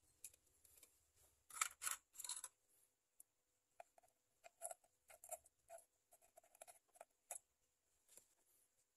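Long metal tweezers scraping and clicking against a small porous lava rock as it is gripped and set down in the substrate: a few loud scratchy scrapes about two seconds in, then a run of lighter clicks and taps.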